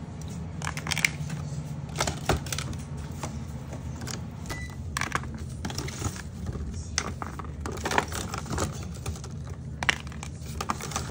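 Green grapes and mandarin oranges being dropped and set into a clear plastic food container, making irregular light clicks and knocks against the plastic, over a steady low hum.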